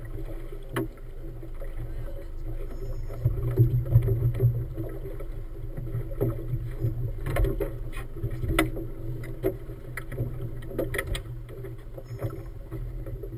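A motorboat's engine running at low speed with a steady low hum, over which come many short, sharp knocks.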